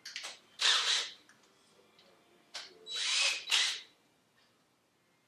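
Power drill run in several short bursts, each well under a second, as holes are drilled in the floor to screw down 2x4 supports for the island.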